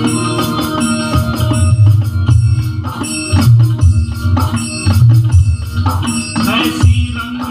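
M Studio electronic octopad struck with wooden drumsticks, firing off a rhythmic drum pattern of deep bass beats and lighter hits. It plays over a music track with sustained keyboard tones.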